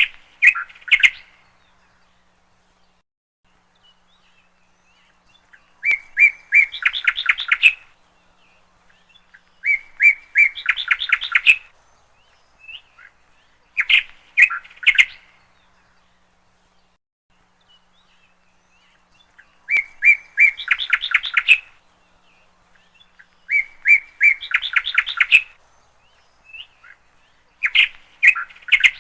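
Bird chirping in short phrases of rapid, rising notes, repeated about every four seconds with quiet gaps between.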